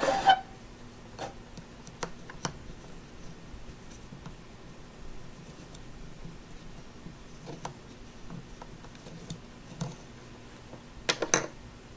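Small scattered taps and clicks of a plastic Play-Doh roller and toy pieces on a wooden tabletop as white dough is rolled flat, with a louder pair of clacks near the end as a plastic cupcake wrapper is handled.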